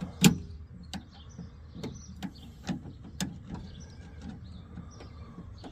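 Scattered sharp clicks and light knocks of metal latch parts and linkage being handled inside a pickup's door, about a dozen over a few seconds, the first just after the start the loudest.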